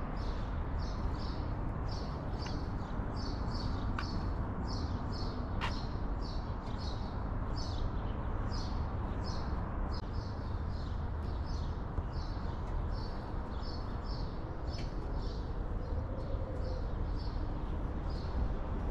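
Small birds chirping over and over, about two to three short high chirps a second, often in pairs, over a steady low rumble.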